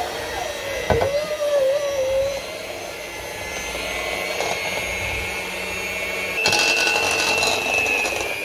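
Russell Hobbs electric hand mixer running with its beaters in thick chocolate cake batter, a steady motor whir. About six and a half seconds in it gets louder, with a higher whine on top.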